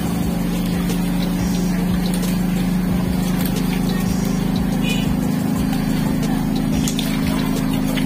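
Steady low hum of a running motor, unchanging throughout, with faint clicks and knocks over it.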